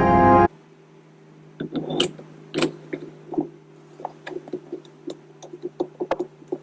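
Organ music cuts off about half a second in. After that come scattered small clicks and taps from hands working the shift knob and its fittings on the S2000's shifter, over a steady low hum.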